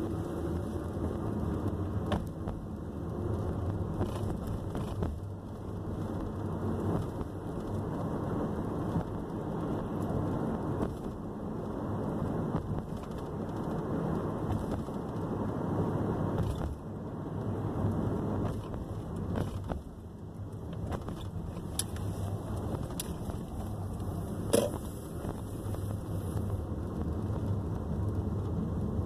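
Steady road and engine noise heard from inside a moving car, rising and falling gently, with a few faint clicks and one sharper tap near the end.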